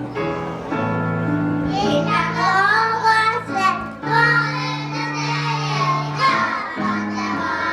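A child singing with a high voice over backing music with sustained bass notes. The voice comes in about two seconds in.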